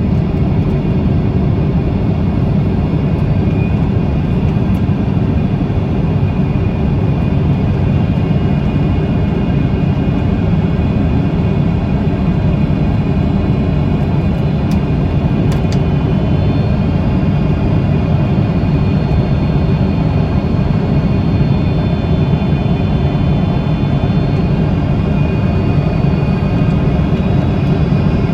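Steady jet airliner cabin noise: a low roar of engines and rushing air, with faint high whining tones that shift slightly in pitch partway through.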